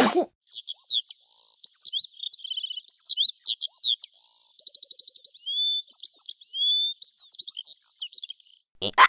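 A songbird singing a varied, rapid song of high whistles, chirps, trills and rising slurred notes for about eight seconds, after a brief noisy burst at the very start.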